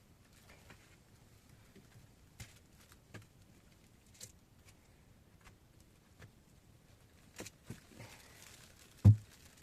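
A few scattered small clicks and knocks, with one much louder dull thump near the end.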